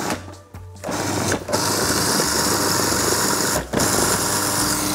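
Food processor motor pulsed while blending a pistachio and herb pesto: it starts about a second in and cuts out briefly twice between pulses.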